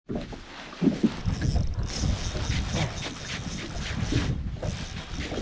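A spinning reel being cranked on a jerkbait retrieve, a rhythmic whirring with repeated ticks from about two seconds in. Under it runs wind on the microphone with water slapping the small boat, and there are two sharp knocks about a second in.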